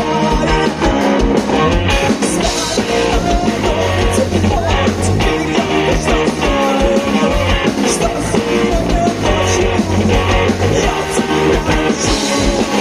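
Live band playing loud rap-rock, with drums, guitar and vocals, recorded on a smartphone in the crowd.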